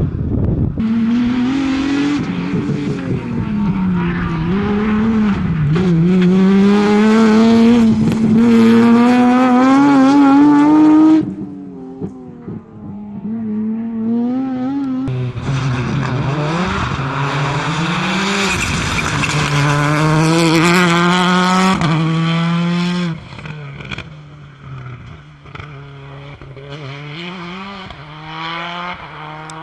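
Rally cars driven flat out on a special stage, one after another, their engines revving up and dropping back through gear changes as each passes close. The first loud pass cuts off abruptly about eleven seconds in, a second loud pass runs from about fifteen to twenty-three seconds, and a fainter car follows.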